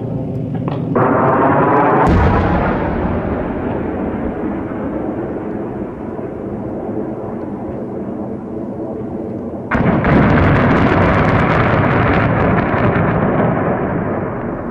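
Jet aircraft roaring overhead, with a heavy blast about two seconds in that dies away slowly. About ten seconds in comes a sudden, long rippling crackle of many small explosions, cluster-bomb submunitions going off in quick succession, fading over a few seconds.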